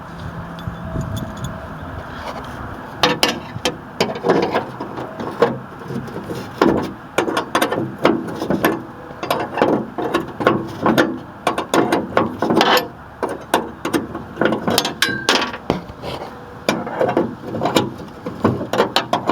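Socket ratchet clicking in quick, irregular runs as the 9/16 nuts holding a car door handle are worked loose, starting about three seconds in.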